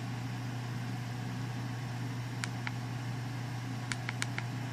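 Steady low hum in the room, with a few small sharp clicks: two about two and a half seconds in and a quick run of four near the end, from an LED wristband's push button being pressed to turn it on.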